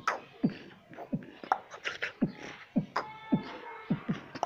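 Beatboxing by a teenage boy: low mouth bass-drum kicks that drop in pitch, about two a second, with short click and snare-like hits between them and a brief held note about three seconds in.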